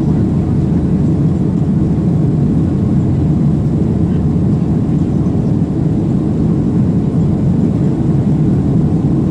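Cabin noise of a Boeing 737-800 climbing out just after takeoff: its CFM56-7B engines at climb power and the air rushing past the fuselage, heard from a window seat over the wing as a steady low-pitched roar with no change.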